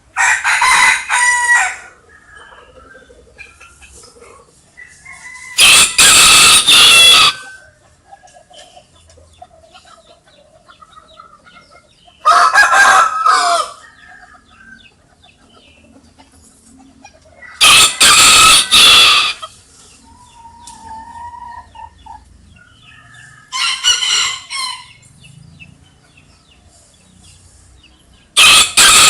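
Rooster crowing cock-a-doodle-doo, six loud crows about five to six seconds apart, each lasting about a second and a half. Quieter chicken clucking and short calls fill the gaps between crows.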